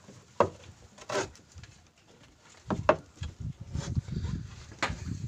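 A handful of short knocks and scrapes: a wooden handline winder knocking and rubbing against the side of a wooden fishing boat as the line is worked.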